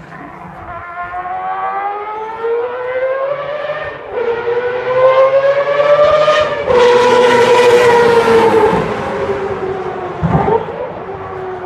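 Mazda four-rotor rotary engine in a Group C race car, its high-pitched note rising as it accelerates and dropping back at upshifts about four and seven seconds in. It is loudest as the car passes, then the pitch falls as it moves away, with a short sharp pop near the end.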